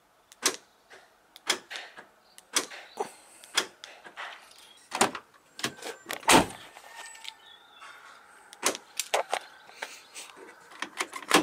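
Retrofitted aftermarket central-locking solenoids and door latches of a Peugeot 106 clicking and clunking as the doors lock and unlock from the key fob, and the door handles being pulled against the locked latches. A series of sharp separate clicks, about one a second at first, with the heaviest clunk about six seconds in.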